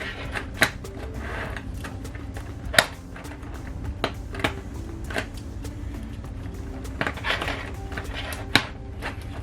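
Plastic LEGO pieces clicking and clattering as bricks are handled and pressed together, in scattered sharp clicks, the loudest about three seconds in and near the end.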